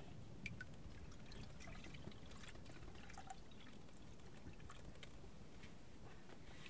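Milk pouring in a thin stream from a plastic bucket into a brass bowl, a faint trickle with small drips.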